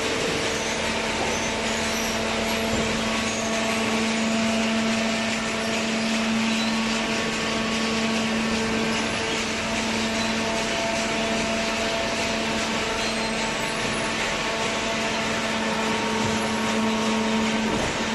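Hydraulic cardboard baler running with a steady mechanical hum from its motor and pump.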